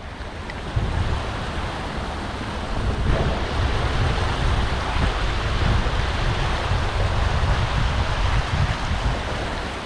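Water rushing hard through a small man-made spillway: a steady, even rush, with uneven low buffeting of wind on the microphone underneath.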